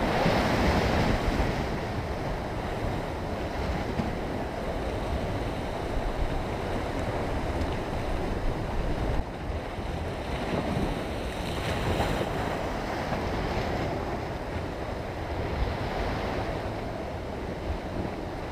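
Sea surf washing and breaking against a rocky shore, swelling louder in several surges, with wind rumbling on the microphone.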